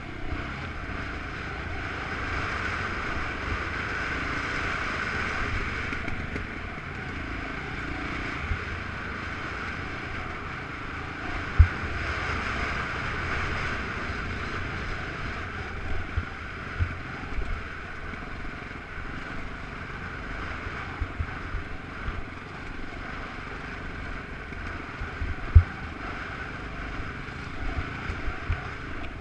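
Off-road motorcycle engine running steadily while riding a rough dirt trail, with wind rushing over the microphone. Scattered sharp knocks come from the bike hitting rocks and bumps, the loudest about twelve seconds in and again near the end.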